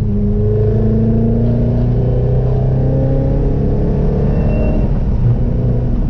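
2019 Corvette C7 Z06's supercharged 6.2-litre V8 running at steady revs while the car is driven, with road rumble underneath.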